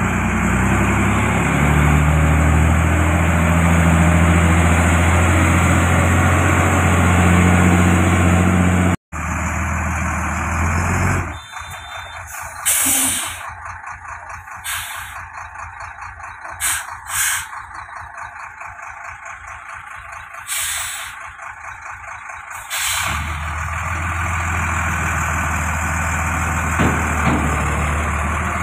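Heavy diesel tractor unit's engine running with a deep, loud drone; it cuts out for a moment about nine seconds in. The engine then drops back while about five short, sharp air-brake hisses sound, and the deep drone comes back for the last few seconds.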